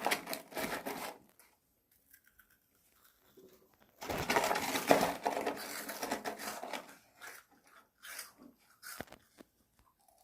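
Crinkling of a plastic snack wrapper in two stretches, the second and longer one starting about four seconds in, followed by a few small clicks.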